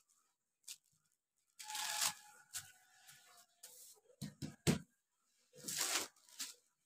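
Thin kite paper crinkling and rustling as it is unfolded and smoothed flat by hand, in two longer bursts. Near the middle comes a quick run of soft thumps as the hand pats the sheet down on the table.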